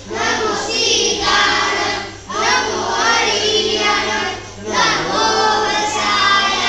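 A group of schoolchildren singing a prayer together in unison, in phrases with short breaks between them.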